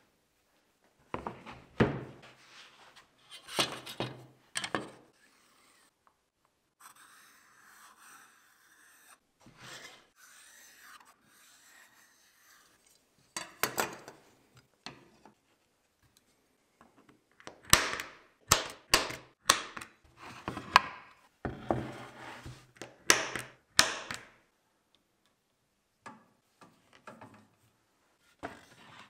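Hands working MDF panels on a bench: knocks and thuds as boards and tools are picked up and set down, with softer scratching of a pen or compass marking lines on the board. A busy run of sharp knocks and clatters comes in the second half.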